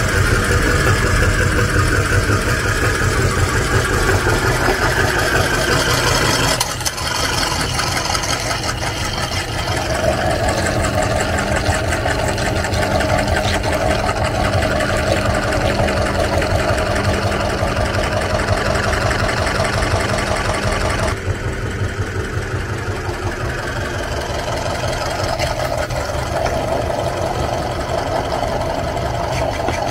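Motor-driven meat grinder running steadily as its auger forces soft banana through the cutting plate. The tone changes abruptly about six and a half seconds in and again about twenty-one seconds in.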